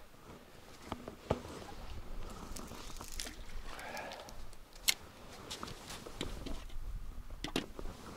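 Rustling with a few scattered sharp clicks and knocks, the loudest about five seconds in.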